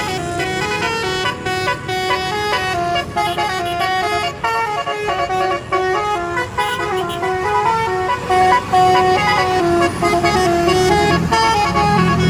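Telolet basuri multi-note bus horn playing a melody, its pitch stepping from note to note two or three times a second. A lower steady tone comes in near the end.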